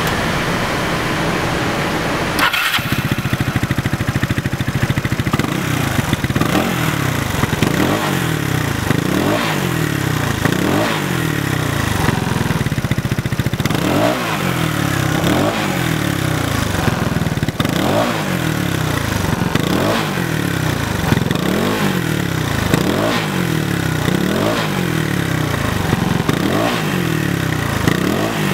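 Motorcycle engine with a 58.5 mm big-bore cylinder and a stainless steel exhaust pipe, revved over and over in quick blips, about one every one and a half seconds, the pitch rising and falling each time.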